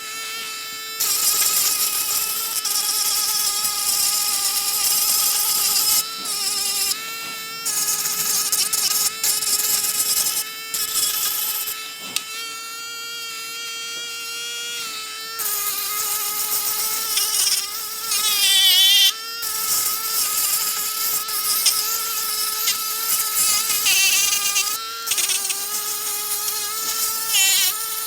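Small hand-held electric polishing and sanding machine whining at high speed as its sanding bit grinds car body putty, with a gritty scraping hiss. The level jumps and the pitch sags several times as the bit is pressed onto the work and eased off.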